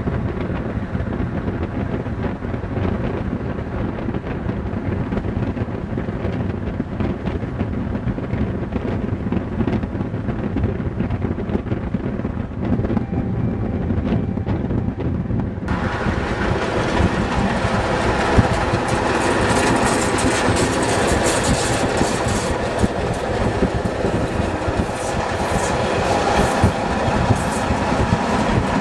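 Prussian P8 steam locomotive 638.1301 running with its train of carriages: a low, steady rumble while it is far off, then, from just past halfway, a close pass with wheels clattering over the rail joints in many sharp clicks.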